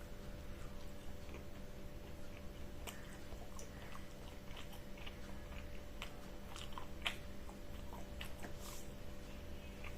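A person chewing mouthfuls of masala fried chicken, with small scattered wet clicks of chewing over a steady background hum.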